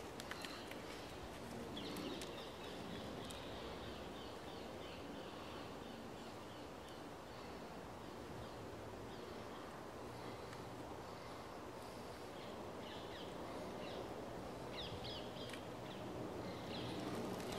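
Woodland ambience: a steady background rush with small birds calling in short runs of high notes, about two seconds in and again near the end.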